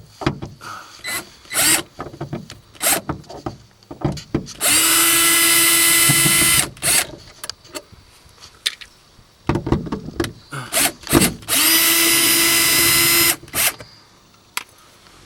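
Power drill driving out Phillips screws from interior trim: the motor runs steadily in two bursts, about two seconds and a second and a half long, about a third of the way in and again near the end. Short clicks and knocks of handling the screws and plastic trim fall between them.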